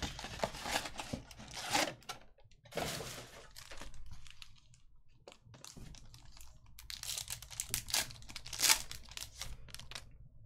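Cardboard trading-card box being torn open, then a foil card-pack wrapper crinkling and tearing as the pack is opened, in several bursts of rustling.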